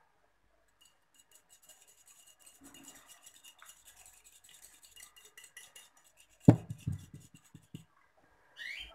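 A fork beating egg yolk in a small dish: a fast, faint run of clicks as the tines tap the dish. About six and a half seconds in comes a louder knock, followed by a few softer thuds.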